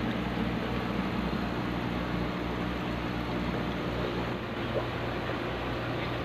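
Aquarium aeration: a steady low hum from an air pump, with the hiss of sponge filters bubbling in the fry tanks.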